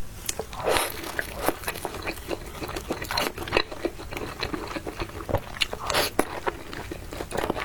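Close-miked eating: bites and chewing with many irregular crunches and clicks, the loudest bites coming about a second, three seconds and six seconds in.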